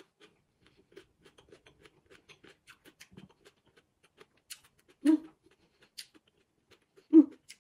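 Chewing a bite of crunchy green mango: a run of small crisp crunches, a few a second, for the first four seconds, then two short louder mouth sounds.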